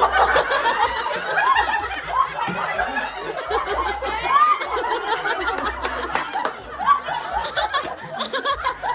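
A group of people laughing, with excited voices overlapping.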